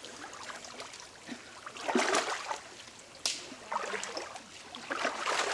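River water splashing and sloshing as a fishing net is hauled in by hand by people wading waist-deep, with short irregular splashes about two seconds in and again near four seconds, and one sharp slap just after three seconds.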